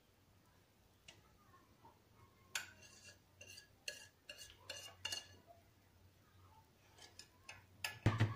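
A metal spoon clinking and scraping in a series of short, sharp taps as thick homemade cheese curd is scooped into a cardboard milk carton.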